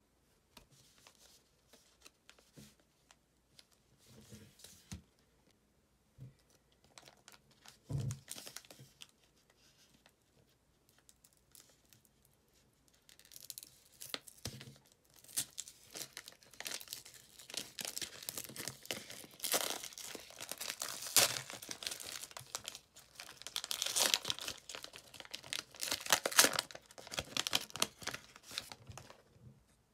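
Plastic wrapper of a Panini Threads basketball card value pack being picked at, torn open and crinkled by hand. A few faint handling sounds and a single thump about eight seconds in come first; from about thirteen seconds on the tearing and crinkling is dense and loudest in the second half.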